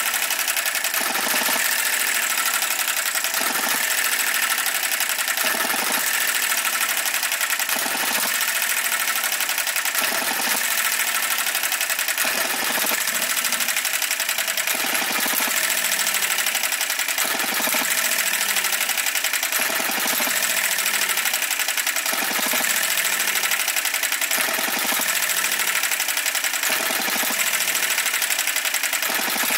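Enjomor 6cc single-cylinder hit-and-miss model petrol engine running with its governor spring shortened. Its mechanism clatters fast and steadily, and a louder firing beat comes about every two seconds as the governor lets it fire and then coast.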